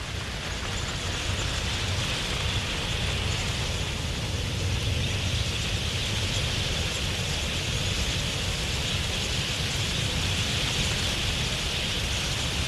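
Dense, steady din of a huge wild budgerigar flock, thousands of birds chattering at once, with a low rumble beneath.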